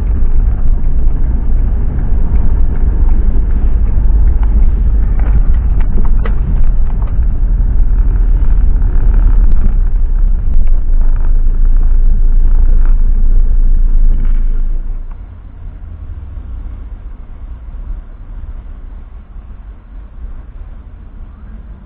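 Steady low rumble of a vehicle on the move, with no speech. It drops sharply in level about 15 seconds in and stays quieter after.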